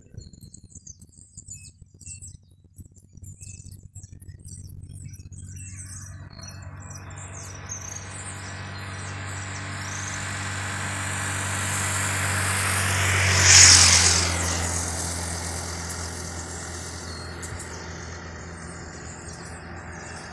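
A road vehicle approaches and passes: its engine and tyre noise swells over several seconds to a peak about two-thirds of the way through, then slowly fades. High, rapid chirping of birds and insects is heard in the first few seconds.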